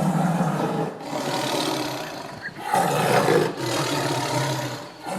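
A large animal calling with deep, rough roars, several long calls in a row with short breaks between them.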